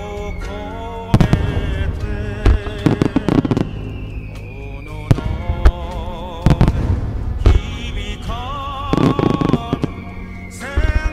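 Aerial firework shells of a starmine display bursting in quick clusters of sharp bangs and crackles, over music with sustained, wavering melody notes.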